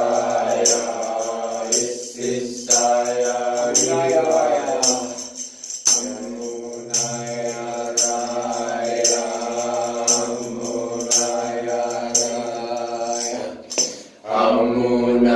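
Slow devotional music: long held chanted tones, gliding in pitch now and then and breaking off briefly a few times, over a jingling shaken percussion beat about once a second.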